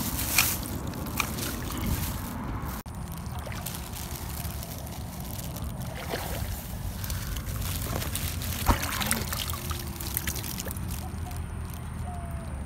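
Shallow pond water sloshing and trickling as hands and the camera move through it among rocks, with a few sharp knocks, the loudest about a second in and another near nine seconds.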